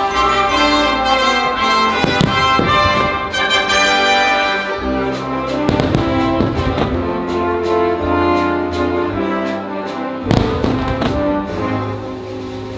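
Patriotic orchestral soundtrack led by brass, with fireworks shells bursting over it several times; the loudest burst comes about ten seconds in.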